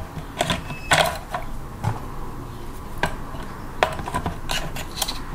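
C-cell batteries and plastic casing clicking and knocking as the batteries are fitted into the battery compartment of a Davis Vantage Vue weather station console: a string of irregular light knocks.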